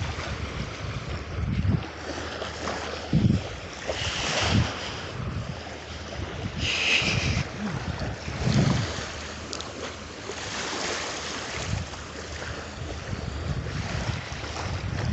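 Wind buffeting the microphone in irregular gusts over a steady wash of ocean surf.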